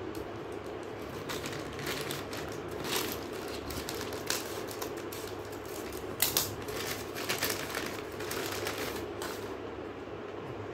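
Clear plastic bag crinkling and crackling as hands open it and pull out a part, in scattered irregular bursts, the loudest about six seconds in.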